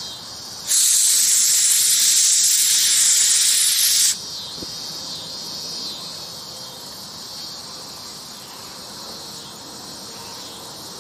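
A loud, even hiss of rushing gas at a homemade vacuum-impeller jet engine starts suddenly about a second in and cuts off sharply about three seconds later. Crickets chirp steadily under it and carry on after.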